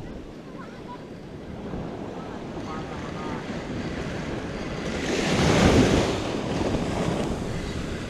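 Ocean surf breaking and washing up a sandy beach, with wind buffeting the microphone. A wave surges in about five seconds in, the loudest moment, then recedes.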